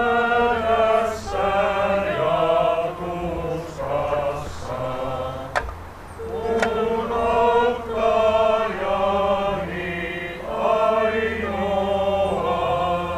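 A congregation sings a hymn together in slow phrases of long held notes, with short breaks between the lines. Two sharp clicks come about halfway through.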